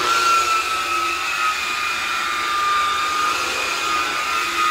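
DeWalt variable-speed rotary buffer with a black foam polishing pad running on a painted motorcycle tank: a steady motor whine over the hiss of the spinning pad.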